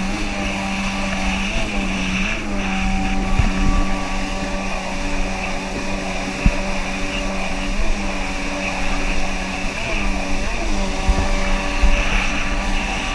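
Kawasaki 650 TS jet ski's two-stroke twin engine running at a steady cruising speed, its note dipping briefly and picking up again a few times, over rushing water and spray, with a few sharp knocks.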